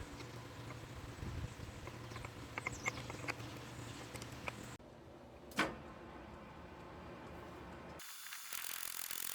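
Light mechanical clicks and rattles of a small mechanism, scattered at first, with one sharp click about five and a half seconds in, then a steady hiss near the end.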